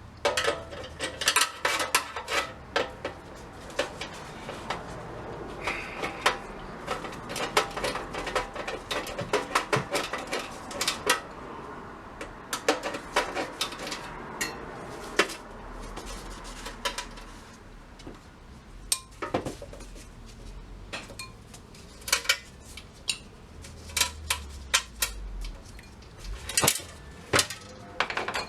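Metal clinking and rattling, many irregular sharp clinks, as tools and small metal parts are handled while an old jawbreaker vending machine is taken apart.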